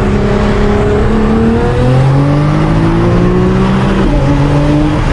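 Nissan R35 GT-R's twin-turbo V6, tuned to about 1,100 hp with an HKS GT1000 turbo kit, pulling hard at full throttle. The revs climb, fall with an upshift about one and a half seconds in, climb again and fall with another upshift about four seconds in.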